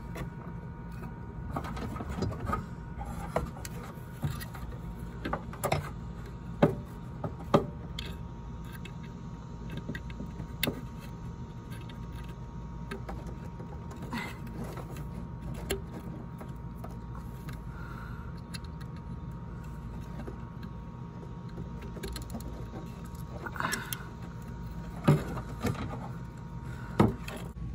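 Scattered sharp clicks and light knocks as wire connectors are handled and hooked to a truck horn's terminals, over a steady hum.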